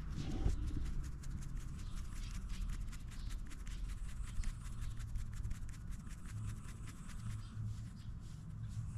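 Fingers scratching a Shiba Inu's chin and cheek fur: a rapid, continuous scratchy rustling.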